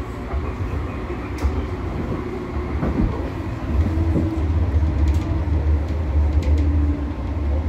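Interior of an NGT6DD low-floor tram in motion: steady low rumble of the running gear on the rails. From about four seconds in it grows louder, with a steady hum over the rumble.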